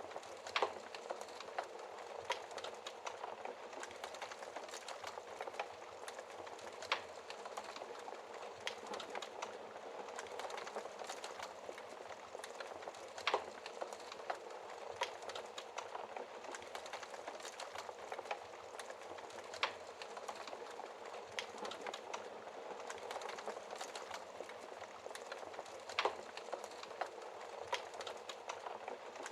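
Fireplace fire burning with a steady hiss and dense soft crackling, broken by a handful of louder sharp pops a few seconds apart.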